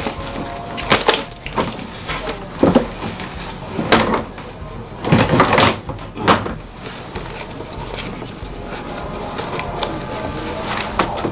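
Hard plastic knocks and clatters from a plastic storage box and its snap-on lid being handled and pressed shut, about one knock a second for the first six seconds, then fainter handling. A steady, rapid, high-pitched chirping runs underneath throughout.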